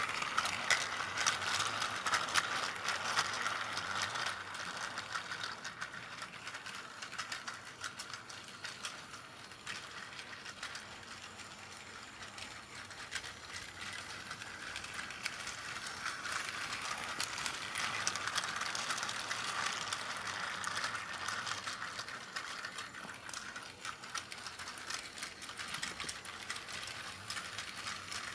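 Battery-powered Plarail C12 steam locomotive toy pulling container wagons round plastic track: its small motor and gearbox whirring with a rapid clicking clatter. Louder at the start, as it passes close, and again about two-thirds of the way through.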